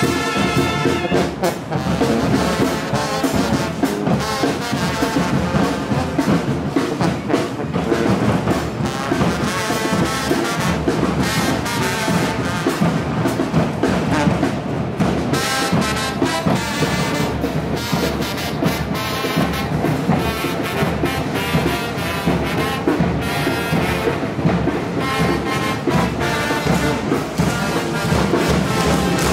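A brass band plays loud, continuous music with a steady beat.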